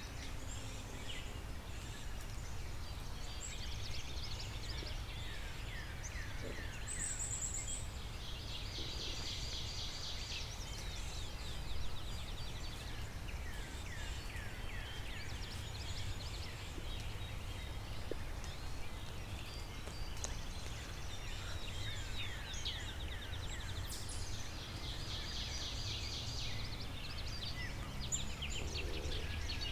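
Songbirds singing in spring woods: many short falling whistled notes, with a fast trill twice, about nine seconds in and again near the end, over a steady low background rumble.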